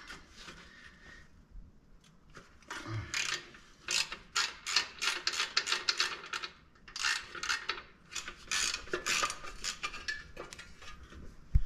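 Hand socket ratchet clicking in quick runs as bolts are backed out of the side rails of a stock Jeep TJ seat base: two long runs of rapid clicks with a short pause between, then a single knock at the end.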